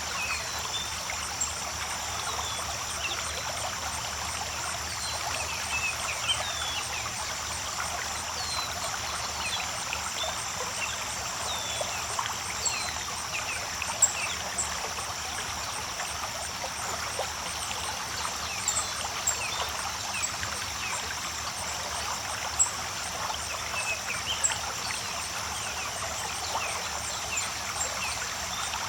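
Creek water trickling and splashing steadily, with short high chirps scattered through it and a steady high-pitched tone above.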